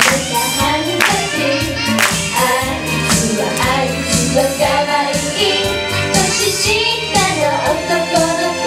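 Two female pop idols singing a J-pop song live into handheld microphones over pop backing music with a steady beat.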